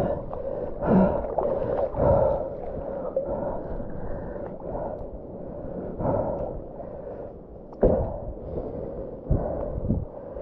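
Sea water sloshing and splashing against a wading angler's body close to the microphone, in irregular surges with a few sharper splashes.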